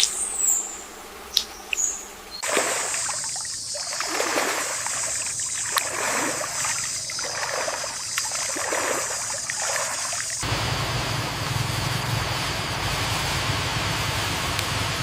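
Water sounds: a few drips and a short bird chirp at first, then irregular splashing and trickling, giving way abruptly after about ten seconds to a steady stream-like rush.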